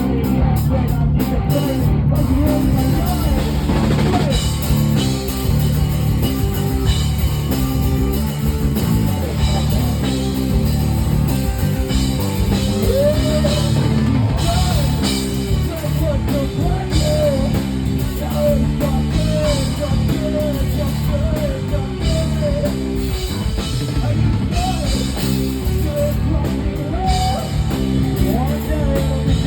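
Rock music with drums, guitar and singing.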